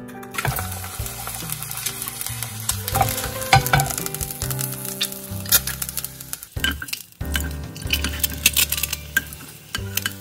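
Food sizzling in a hot frying pan, first an egg frying, then after a short break about seven seconds in, a pat of fat melting as a wooden spatula stirs it and taps the pan.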